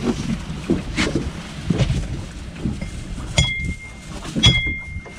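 Wind rumble on the microphone aboard a fishing boat, with scattered knocks and thumps from gear being handled on the deck. A steady high beep sounds twice in the second half.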